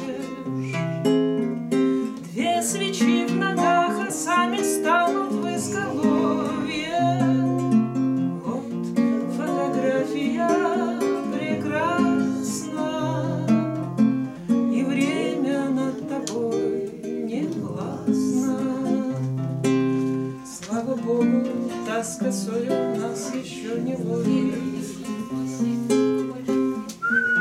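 Two nylon-string classical guitars playing together, with a woman singing over them.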